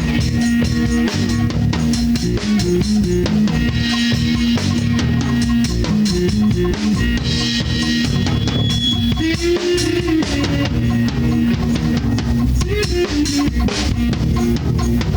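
Alternative rock band playing an instrumental passage on a live cassette recording: a full drum kit with bass drum and snare hitting steadily over a bass line and electric guitars.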